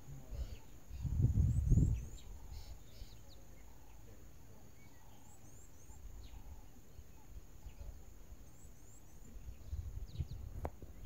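Bush ambience: a steady high insect drone, with a bird giving quick runs of three or four short, falling high chirps several times. Bursts of low rumbling noise come about a second in and again near the end.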